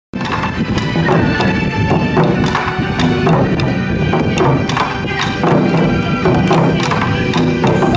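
Bon odori dance music: a recorded Japanese pop song with a steady beat, cutting in abruptly at the start.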